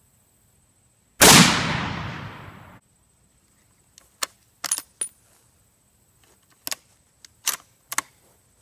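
A single shot from a .243 Savage-made Stevens bolt-action rifle about a second in, the blast trailing off over about a second and a half. It is followed by a series of sharp metallic clicks from the bolt being worked.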